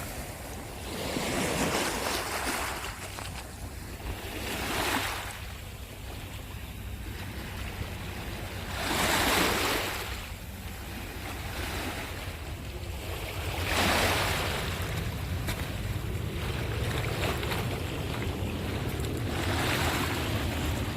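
Sea waves breaking, a swell of surf about every four to five seconds, over a steady low rumble of wind on the microphone.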